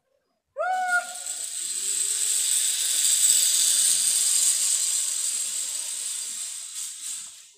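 Zip-line pulley trolley running along a steel cable: a long, high whirring hiss that builds to its loudest about halfway through, then fades out near the end. A short cry from the rider opens it.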